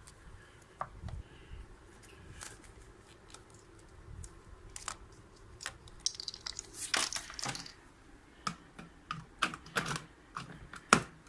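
Irregular plastic clicks and handling noise from a smart power strip and plug being set up. There is a denser clatter about seven seconds in and one sharp click near the end.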